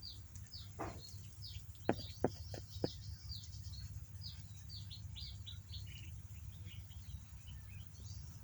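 Small birds chirping over and over in quick, short, high notes that fall in pitch. A few sharp clicks come about two to three seconds in, over a steady low rumble.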